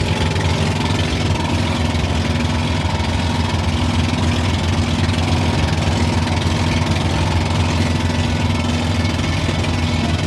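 Outrigger boat (bangka) engine running steadily while underway: a loud, even low drone with a fast pulse, with rushing wind and water noise over it.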